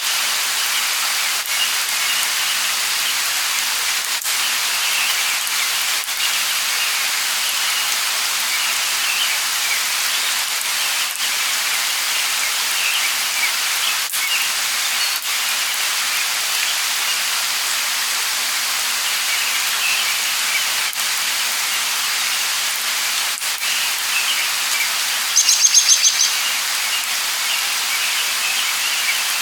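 Light rain falling as a steady even hiss, with small birds chirping through it. About 25 seconds in, one bird gives a louder, quick trill of rapidly repeated high notes.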